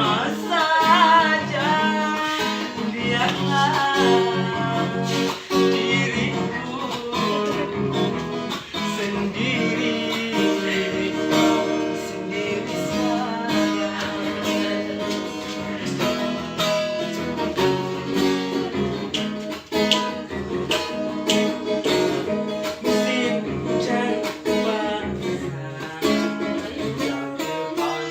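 Acoustic guitar strummed steadily, with a singing voice over it, clearest in the first few seconds.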